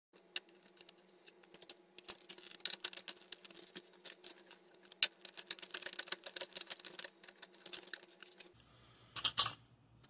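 Quick, irregular clicking and rattling of plastic wiring-harness connectors and a retainer being handled and pressed into a refrigerator control board's plastic housing, with a faint steady hum underneath.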